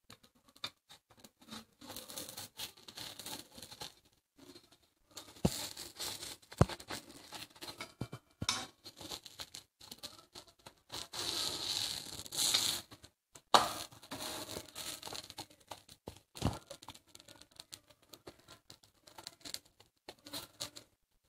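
Wooden spatula scraping and pressing a kulcha against a hot iron tawa: irregular scrapes with a few sharp knocks of the spatula on the pan.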